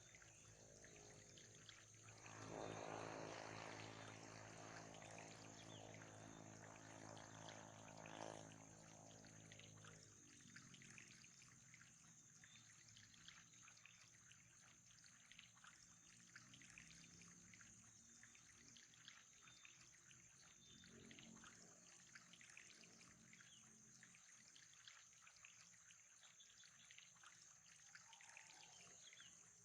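Faint running water trickling and pouring steadily. A low steady hum sits under it for the first ten seconds or so, then stops.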